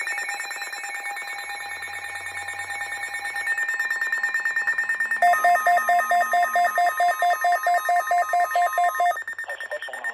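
Emergency alert tones: a steady electronic tone with a fast warbling flutter, joined about five seconds in by a steady alarm tone and a rhythmic beeping of about four beeps a second, which stop together about nine seconds in.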